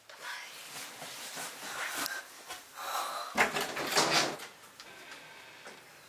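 Scraping and rustling with a few light knocks, loudest in a burst about three and a half seconds in.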